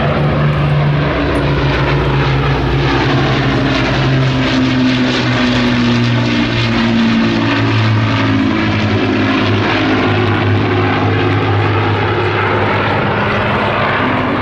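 Rolls-Royce Merlin V12 piston engines of WWII propeller aircraft running in flight, a loud steady drone in which several engine tones drift and beat against one another.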